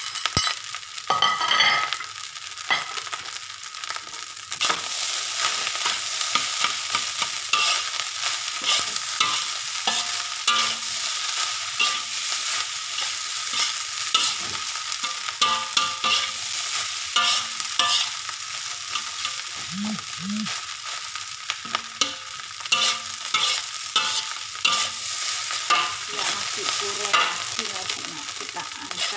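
A metal spatula stir-frying rice in a metal wok: many irregular scrapes and clinks of the spatula against the wok over a steady frying sizzle.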